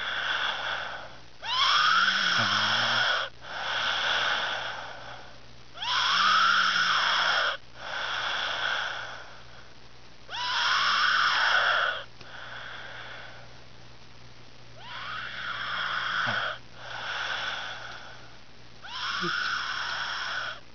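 A person snoring with a loud, high-pitched wheezing whine on each breath, the whine rising and then falling in pitch, with a softer breath in between. About five such snores, one every four to five seconds.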